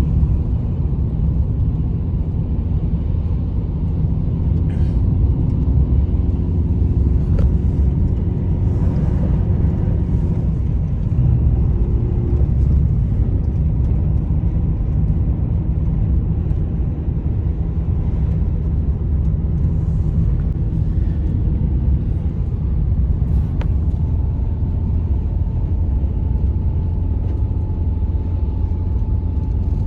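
A loud, steady low rumble that starts abruptly and holds throughout, with faint steady tones above it.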